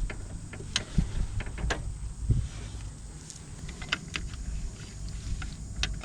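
Hand tools at work during a clutch job: irregular sharp clicks and a few dull knocks.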